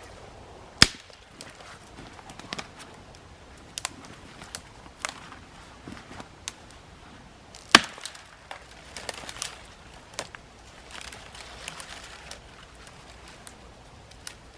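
Two sharp chopping strikes on wood, about seven seconds apart, with lighter knocks and snaps of wood between them.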